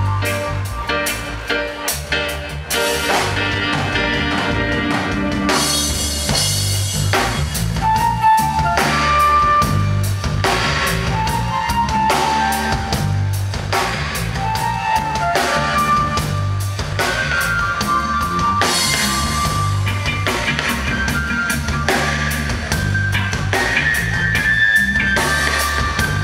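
Live band playing: drum kit, bass guitar, electric guitar and keyboard, with a steady drum beat, a repeating bass line and held melody lines over it.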